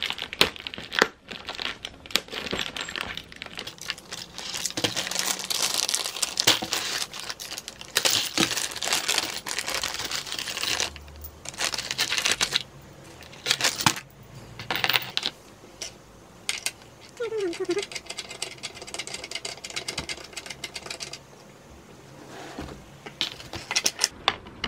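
Plastic film crinkling and tearing as it is cut and pulled off the wrapped sofa legs, in irregular bursts. Later a small plastic bag of metal screws rustles, with light clinks.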